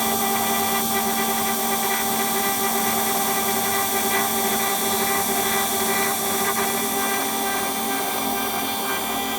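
CNC router spindle running steadily while carving, a constant high whine of several steady tones over a hiss of cutting.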